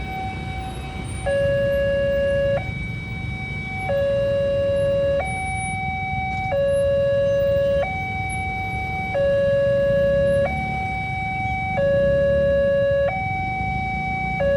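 Railway level-crossing warning siren sounding a steady two-tone alarm: a higher and a lower note alternate evenly, each held about a second and a quarter, with the lower note louder. A constant low rumble of road traffic lies underneath.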